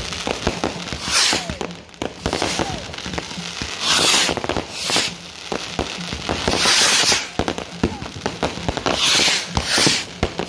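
Aerial fireworks going off: a rapid string of bangs and crackles from bursting shells and crackling stars, with several brief hissing rushes in between.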